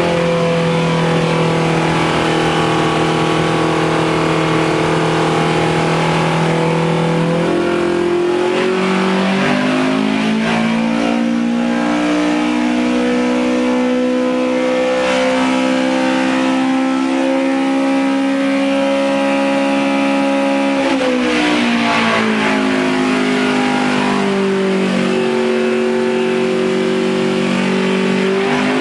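2.5-litre Millington Diamond four-cylinder rally engine running on a dyno through its rally-car exhaust, held at steady speeds. Its pitch steps up about a quarter of the way in, holds, drops back sharply about two-thirds in, then climbs again near the end.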